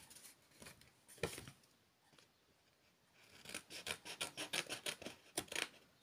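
Scissors cutting through black cardstock: a couple of snips near the start, a short pause, then a run of quick snips through the second half.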